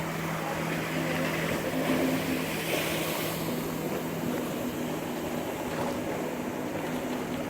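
Jet ski engine running at a steady pitch over a continuous rushing noise, which swells briefly about two to three seconds in.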